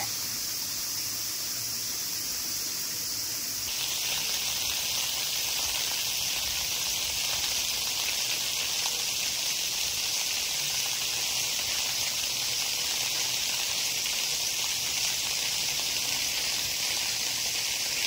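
Steady rushing hiss of falling water from a spring-fed waterfall, growing fuller and a little louder about four seconds in.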